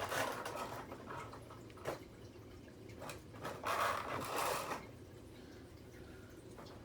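Toy playset packaging being opened by hand: rustling and crinkling in two bursts, with a sharp click between them, then quieter.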